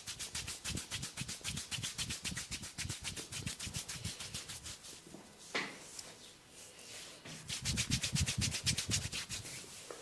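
Rapid scratching and rubbing on a person's hair and scalp in a head massage, about six strokes a second. The strokes ease off midway and come back louder near the end.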